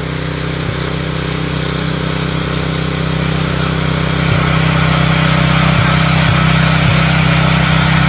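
Small gasoline engine of a Gorilla GS-100 early-entry concrete saw running steadily, growing a little louder about halfway through.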